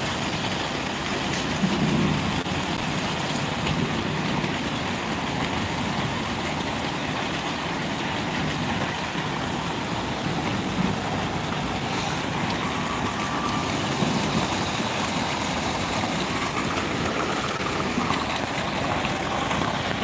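Steady rushing noise of a muddy flash flood pouring across fields in heavy rain.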